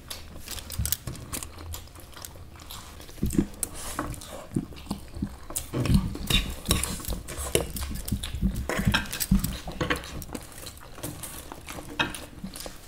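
Cutlery clinking and scraping against plates and bowls while masala Maggi noodles are eaten, with chewing, in irregular clicks that come thicker past the middle.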